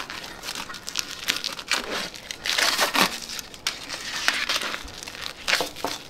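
Heat-shrunk plastic sublimation wrap being torn and peeled off a hot tumbler: irregular crinkling and tearing, busiest about two and a half to three seconds in.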